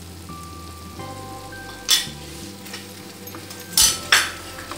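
A spatula stirring thick masala gravy in a kadai over a low sizzle, scraping against the pan about two seconds in and twice more near the end.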